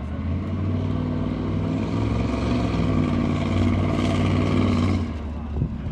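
A van's engine working hard at high revs. It builds up over the first second, holds steady, then eases off near the end.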